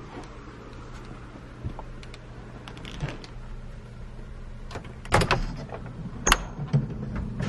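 A wooden door's metal lever handle is worked and the door pulled open. There are a few faint clicks, then loud knocks and clatter about five seconds in and a sharp metallic latch click about a second later.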